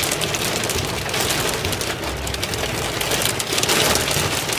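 Hail and heavy rain pelting a car's windshield and roof, heard from inside the car: a dense, steady clatter of countless small hits.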